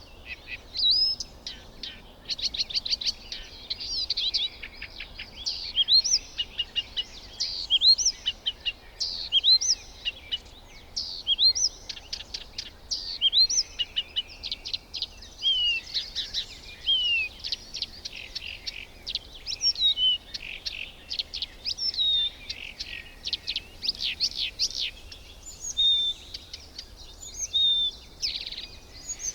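Birds calling: fast rattling trills and short, sharp whistled notes, some sliding down in pitch, in quick succession.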